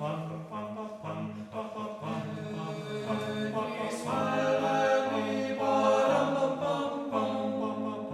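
Background music: a choir singing slow sustained chant-like notes, swelling louder about halfway through.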